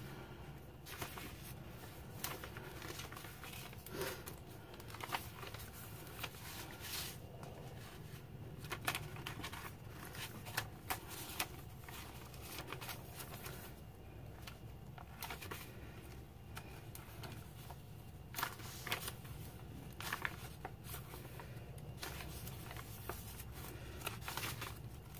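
Paper pages and tags of a handmade notebook being turned and handled: faint rustles and soft flicks at irregular moments, over a steady low room hum.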